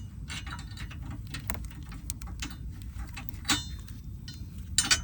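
Irregular light metallic clicks and clinks of bolts and a metal bracket being handled and fitted by hand, with a sharper clack about three and a half seconds in and a few more near the end.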